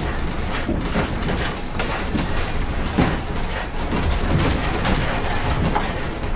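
Studio building and furniture shaking in the 2008 Wenchuan earthquake: continuous rattling with irregular knocks over a low rumble.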